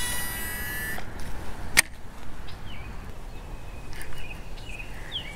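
Baitcasting reel's spool spinning as line pays out on a cast, a high whir that stops about a second in. A sharp click follows, and small birds chirp faintly after it.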